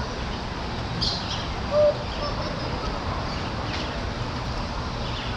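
Steady outdoor background noise with a few faint, high bird chirps. A short, louder pitched note sounds about two seconds in.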